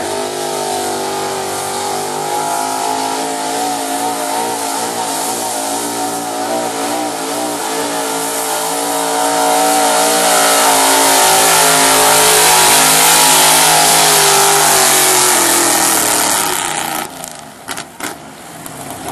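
A 1967 Ford F-350 pull truck's engine running hard at full throttle as it drags a weight-transfer sled; its pitch slowly falls as the sled loads it down. The engine is shut off suddenly about seventeen seconds in, as the truck comes to a stop at the end of the pull.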